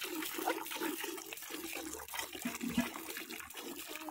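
Streams of milk squirting into a metal bucket as a cow is milked by hand, splashing into the frothy milk already in the pail.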